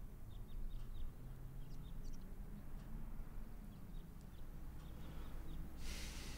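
Quiet room tone with a steady low hum, faint short high chirps scattered throughout, and a brief burst of hiss near the end.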